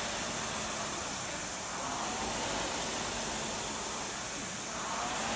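Two Concept2 indoor rowing machines rowed hard in time, their air-resistance flywheels whooshing. The whoosh swells with each drive about every three seconds, with a faint rising whine as the fans spin up.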